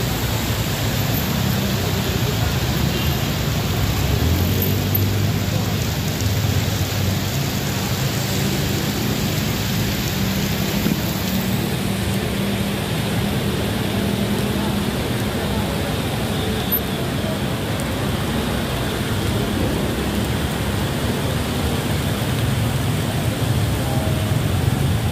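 Heavy rain pouring down steadily, with car and motorcycle engines running in slow traffic.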